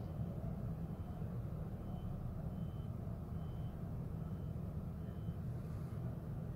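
A vehicle's reversing alarm giving short, high, faint beeps a little over once a second over a steady low rumble.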